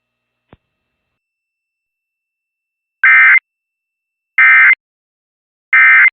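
Emergency Alert System end-of-message data bursts: three identical short, loud digital warbles about a second and a half apart, the encoded EOM signal that closes an alert. A faint click comes about half a second in.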